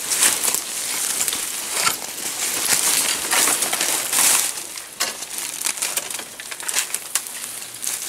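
Footsteps crunching through dry leaf litter and brushing through undergrowth, with irregular crackles of dry leaves and twigs.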